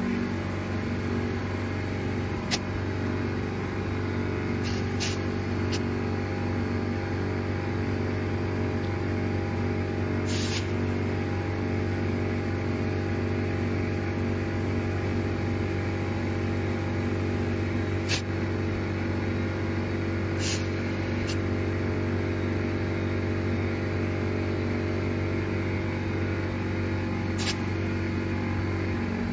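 Air compressor running steadily while a tyre is inflated through a clip-on chuck, with a few short clicks and hisses on top.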